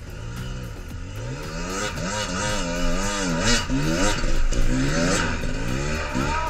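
Enduro dirt bike engine revving up and down in quick repeated throttle bursts as it climbs a steep, rocky forest slope, getting louder as the bike comes closer.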